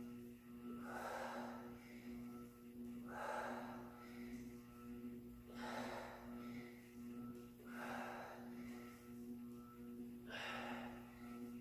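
A woman breathing hard through a kettlebell exercise, five heavy breaths about two seconds apart, over a steady low hum.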